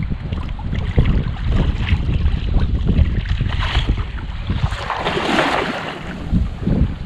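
Wind buffeting the microphone and water sloshing around a wading man, then a cast net thrown, its weighted rim hitting the water with a brief hissing splash about five seconds in.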